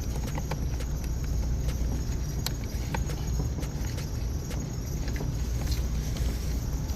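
Light plastic clicks and handling noises from a door panel and its wiring connector being worked loose, over a steady low hum.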